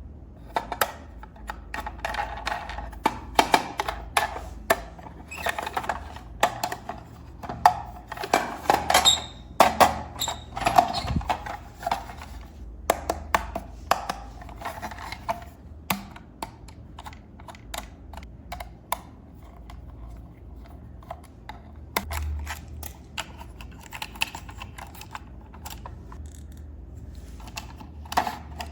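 Plastic packaging and toy parts being handled: a dense run of quick clicks and crinkles, thinning out after the halfway point.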